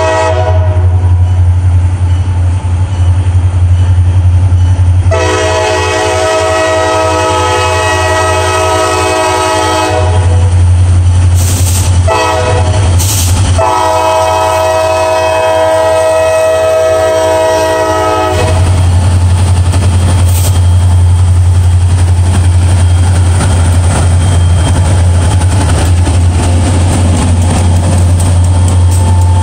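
Diesel freight locomotive's air horn sounding the grade-crossing warning as the train approaches: the tail of one blast at the start, a long blast, a short one and a final long blast ending about 18 seconds in, over a steady low diesel rumble. Then the lead locomotives pass close by, engines rumbling and wheels clattering over the rails.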